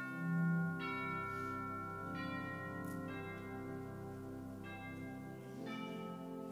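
Slow instrumental music of sustained, bell-like chords, a new chord entering about every second or so.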